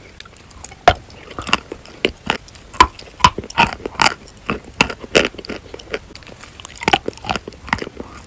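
Chalk being bitten and chewed, crunching in irregular sharp cracks, a few a second.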